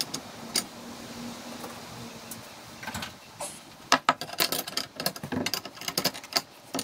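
A spanner working the bolts on a steel hitch bracket: a few separate metal clinks, then a quick run of metallic clicks and rattles from about four seconds in.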